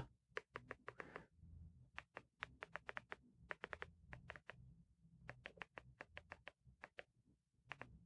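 Buttons of a Function 101 remote for Apple TV clicking, pressed again and again to step across an on-screen keyboard: faint, sharp clicks in quick runs of several a second, with a short pause about halfway.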